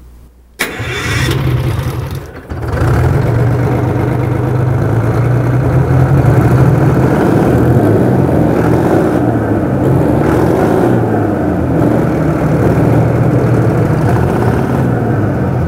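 Detroit Diesel 6V71 two-stroke V6 diesel running with its valve cover off. It comes in suddenly about half a second in, runs loud and steady, and falls away near the end.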